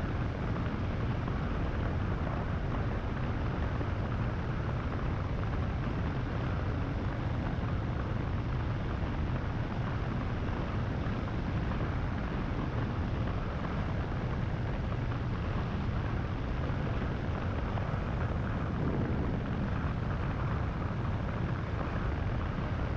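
Power2Fly paramotor engine and propeller running steadily in flight, a constant low drone with no change in pitch.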